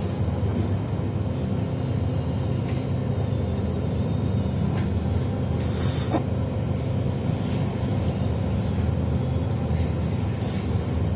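Steady low rumble of a road vehicle in motion, heard from inside, with a brief hiss about six seconds in.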